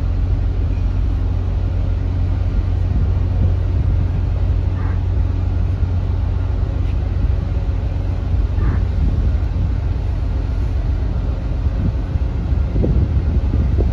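Steady low rumble of large ship machinery, with a constant hum over it. A few faint, brief sounds come in near the end.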